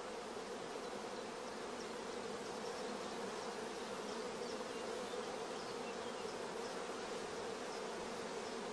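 Honeybees of a queenless starter colony buzzing steadily as the hive is opened, an even, unbroken hum.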